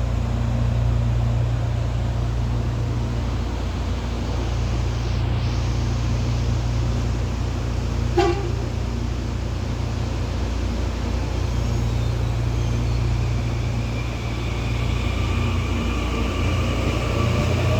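Série 7000 electric multiple-unit train pulling out of a station: a steady low rumble, one short horn toot about eight seconds in, then a whine from the traction motors that rises in pitch over the last few seconds as the train accelerates.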